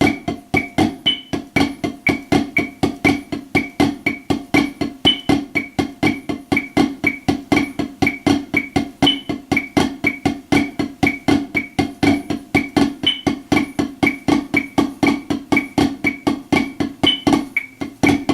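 Drumsticks playing the Swiss Army triplet rudiment in a fast, even, unbroken stream of strokes. A metronome clicks steadily about twice a second, with a higher-pitched accent click every four seconds.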